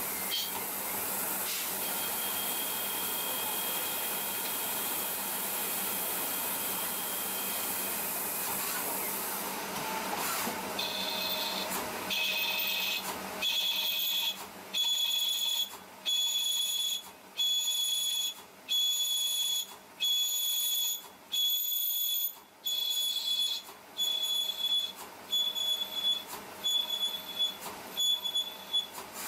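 CNC lathe cutting inside the bore of a spinning brass workpiece. At first a steady hiss, then from about eleven seconds in a high-pitched whine that cuts in and out about once a second.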